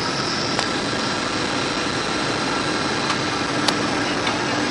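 Steady cabin roar inside a Boeing 737-900ER airliner on approach to land: engine and airflow noise heard from the passenger cabin. A few light clicks sound over it, the sharpest about three-quarters of the way through.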